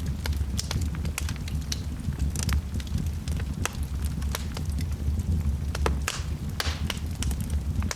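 Wood fire burning in a fireplace: a steady low rumble of flame with frequent irregular sharp crackles and pops.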